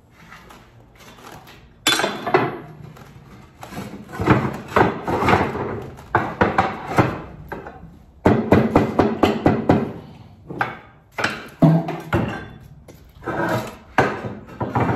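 Hammer blows and knocking on roof tiles, with the tiles clattering as they are lifted and set down, in quick irregular runs of sharp knocks.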